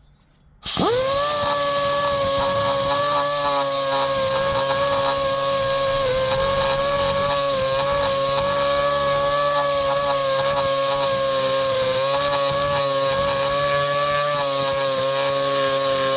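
Air die grinder spinning a sandpaper-wrapped arbor, smoothing a two-stroke chainsaw cylinder's exhaust port. It starts up about a second in, then runs at a steady high whine with a strong hiss of air.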